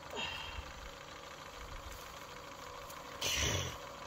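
A steady engine hum, with a short burst of hissing noise about three seconds in.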